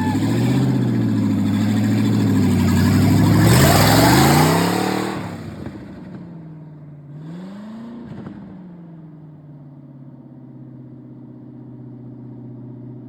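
An engine running loud, revved up about four seconds in and falling back, blipped once more a few seconds later, then settling to a steady idle.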